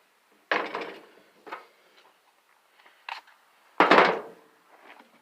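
Irregular knocks and clanks from working apart a scrap electric motor to reach its copper windings: four separate blows, the loudest about four seconds in.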